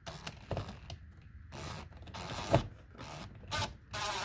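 Plastic car interior trim and speaker parts being handled and pushed into place: a series of short scrapes and rubs with a couple of sharp knocks.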